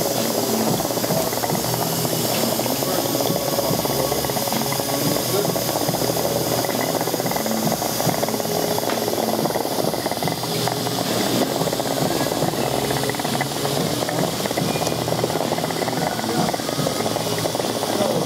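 Background music with a low bass line stepping from note to note about every half second, over a steady hiss.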